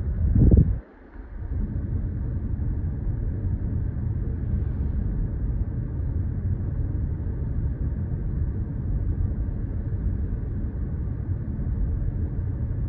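Steady low road and tyre rumble inside the cabin of a Toyota Corolla Cross hybrid cruising at about 60 km/h on electric drive with the engine off, the cabin fully damped and sound-insulated; the meter reads 56 to 58 dB. A short low thump about half a second in, then a momentary drop in the noise.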